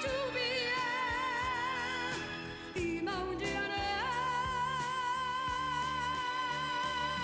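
A woman's voice singing long held notes with a wide vibrato, backed by a pop ballad band. A new high note starts about four seconds in and is held to the end.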